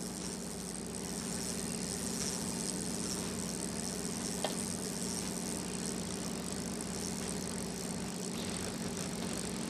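Steady mechanical hum of the fishing boat's engine running, with several constant tones and a low rumble. A faint click comes about four and a half seconds in.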